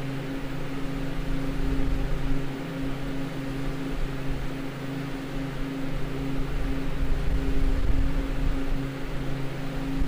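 Walk-in freezer's ceiling-mounted Bohn evaporator unit running, its fans blowing a steady rush of air over a constant low electrical hum.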